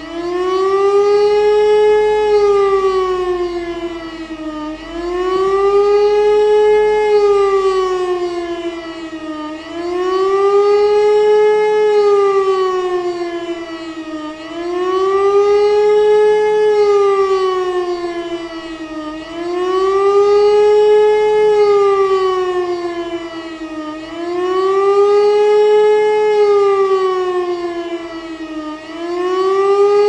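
E57 electric motor siren (9-port rotor, about 420 Hz) sounding the German 'warning of the population' signal: a loud wail rising and falling in pitch, about one swell every five seconds, each sharp low point followed by a quick climb and a slower fall.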